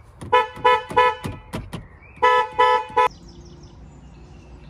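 A newly fitted replacement car horn sounding in short toots: three quick ones, a pause of about a second, then three more. The horn works again after the old one stopped honking.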